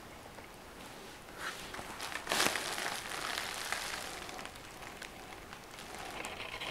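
Handling noise: crackly rubbing and light clicks of hands and camera moving over a laptop's plastic case, with a louder rustle about two seconds in.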